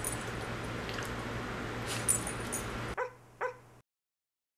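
A steady low room hum with a few light taps, then two short dog yips about half a second apart.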